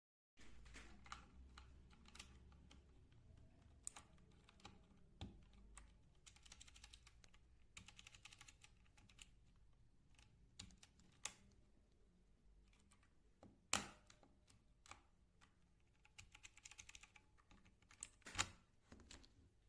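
Keys on Gateron mechanical switches being typed on: a steady, irregular run of faint clicks and clacks, with two sharper, louder clacks in the second half.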